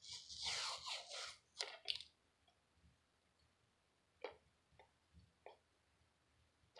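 Fingernail picking and scratching at the seal sticker on a plastic DVD case: a scratchy rustle for about the first second and a half, two sharp clicks, then a few faint scattered clicks of nail on plastic.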